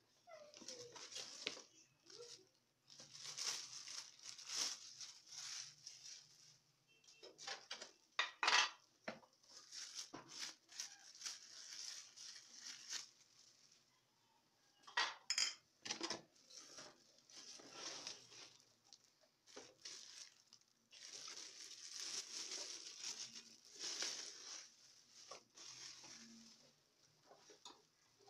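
Plastic wrapping crinkling and cardboard rustling as hard plastic popcorn-maker parts are unpacked and handled. Irregular clicks and clacks come from the plastic pieces knocking together, with the sharpest a third and about halfway through.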